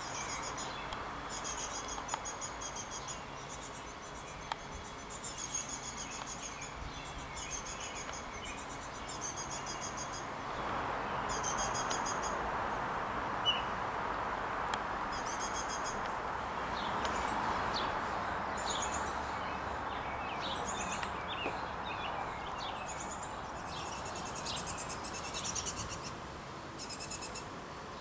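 Baltimore oriole nestlings begging from their hanging nest: short, high chattering bursts repeat every second or two. They become busier and louder about three-quarters of the way in as an adult comes to the nest to feed them.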